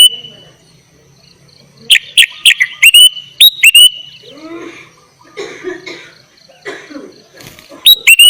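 Sooty-headed bulbul (kutilang) singing: rapid runs of loud, sharp whistled notes, each bending up at its tail, about two seconds in and again near the end, with softer, lower chattering calls in between.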